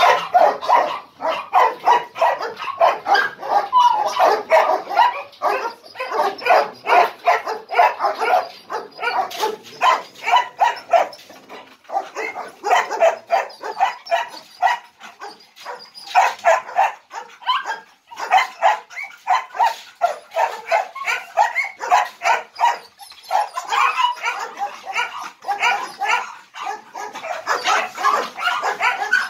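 Caged guard dogs barking rapidly and almost without let-up, with brief breaks, worked up by a hand held at the cage's wire-mesh gate.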